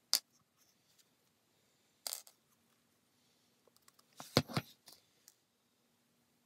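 Small metal parts dropped into a glass jar of tumbling media chips: a sharp clink, a short rattle about two seconds in, then a louder run of clinks and rattling chips against the glass about four seconds in as fingers push the parts into the media.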